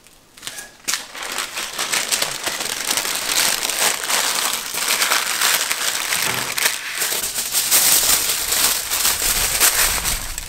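Sheets of baking paper crinkling and rustling as a brisket is wrapped in them. The dense crackling starts about a second in and carries on steadily.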